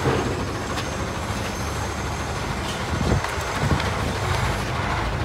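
A vehicle engine running with a steady low rumble. Two dull knocks come about three seconds in.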